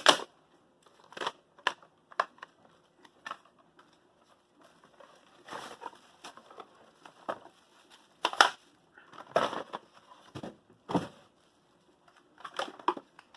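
Packaging being opened and handled: irregular crinkling and rustling with sharp clicks and knocks, the loudest about eight and a half and eleven seconds in.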